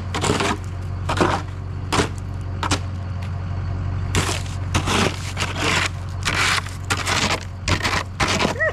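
A diesel engine running steadily with a low hum, under repeated gritty scraping and crunching strokes about once a second, as sand is scraped and spread over ice.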